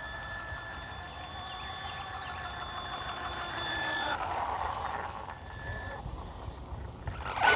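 HPI Baja 5B Flux 1/5-scale brushless electric RC buggy driving past on asphalt: a steady high motor whine and tyre noise that grow louder as it passes close about four seconds in, then fade. A sharp knock near the end.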